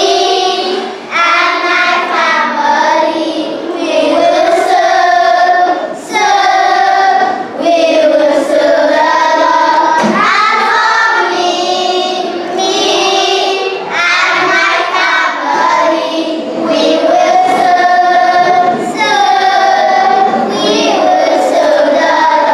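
A group of children singing a song together in unison, held sung notes with short breaks between phrases.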